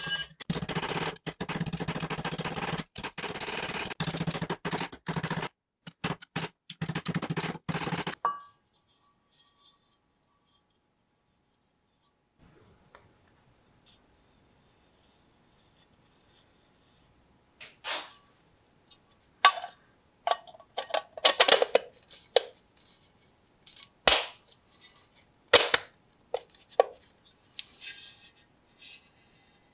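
Acoustic guitar music for about the first eight seconds. Then, after a quiet stretch, a scatter of sharp metallic clinks and knocks as the metal lantern body and its bottom cup are handled.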